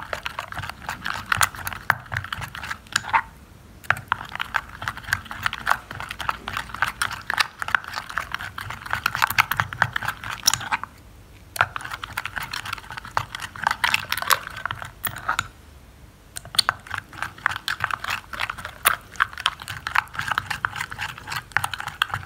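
Thick henna paste being stirred briskly with a plastic spatula in a cut-glass bowl: a rapid run of small clicks and scrapes against the glass as the paste is worked smooth and free of lumps. The stirring stops briefly three times, at about 3, 11 and 16 seconds in.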